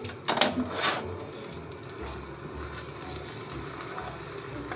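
Beaten eggs frying in a hot nonstick pan while a spatula pushes them around. A louder rush of sizzle and scraping comes in the first second, then a steady, quieter sizzle.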